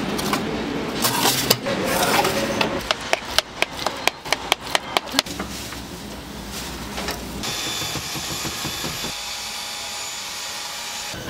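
Cooking noise at a bungeoppang stall: a quick run of sharp metal clicks and clanks from the cast-iron fish-shaped molds and tools, then a steady hiss as batter goes onto the hot gas-fired molds.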